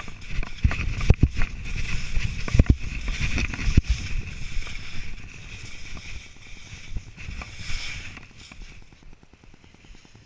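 Skis scraping and hissing over snow during a run through trees, with wind buffeting the camera microphone. There are several sharp knocks in the first four seconds, and the sound eases off after about five seconds.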